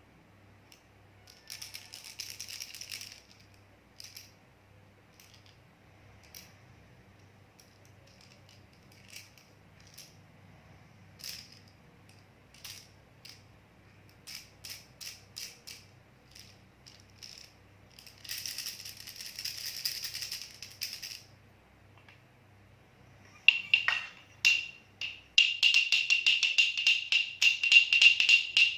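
Baby rattle being shaken: two short bursts of rapid rattling with single clicks and small shakes between them, then near the end a louder, faster rattling with a ringing tone running through it.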